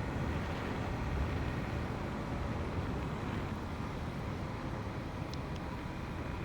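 Steady rumble of riding on a motorcycle through traffic: wind on the microphone mixed with engine and road noise. A brief high chirp sounds about five seconds in.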